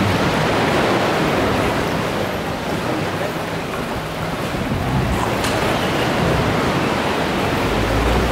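Sea surf washing inside a sea cave, a steady rushing wash, with a faint low hum from idling boat outboard motors at times.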